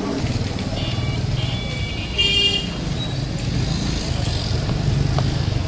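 Street traffic: a steady low rumble of motor vehicles, with a short, loud horn honk about two seconds in and fainter horn tones just before it.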